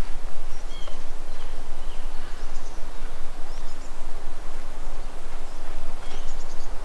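Outdoor wind noise rumbling on the microphone, with a few faint, short, high bird chirps scattered through it.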